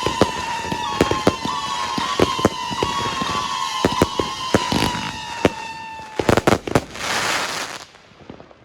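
Riakeo Compound No.1 firework cake firing: overlapping whistling shots, each falling slightly in pitch, over a steady run of sharp reports. About six seconds in comes a quick cluster of loud bangs, then a short hiss, and the firing dies away near the end.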